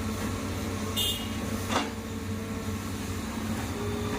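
Excavator diesel engine running steadily, with a brief high squeal about a second in and a single sharp knock just under two seconds in.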